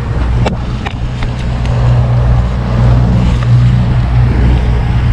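Boat motor running steadily at trolling speed, a low even hum, with a few sharp clicks or knocks in the first second.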